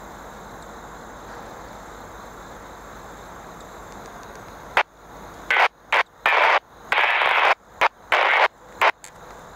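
Radio static: a steady hiss, then about halfway through a run of about eight loud bursts of static that switch abruptly on and off, some brief clicks and some lasting half a second or more.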